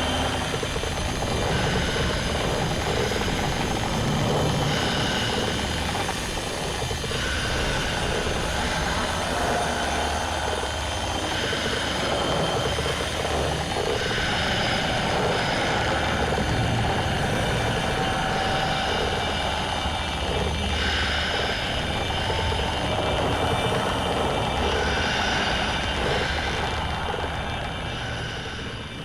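Dense rumbling, hissing noise with shifting pitched bands, from a horror audio recording presented as the sound of a fatal bus crash. It fades out near the end.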